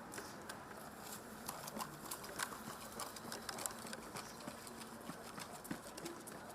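Scattered, irregular clicks and taps over a steady low hiss.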